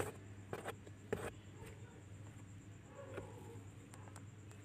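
A quiet room with a low steady hum, broken by a sharp click at the start and two brief rustles about half a second and a second in.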